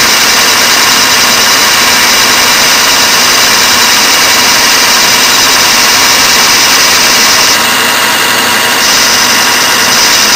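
Clausing metal lathe running under power feed while a high-speed steel tool bit turns a wooden pattern, a steady hiss of wood being cut over the machine's hum. The cutting hiss drops for about a second near the end, then comes back.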